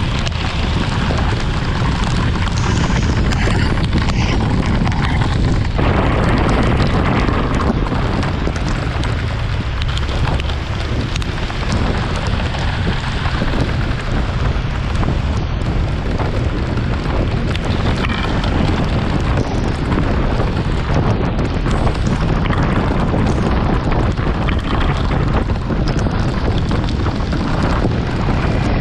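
Steady low rumble of wind buffeting an action camera's microphone on a moving scooter, mixed with the scooter's engine and road noise.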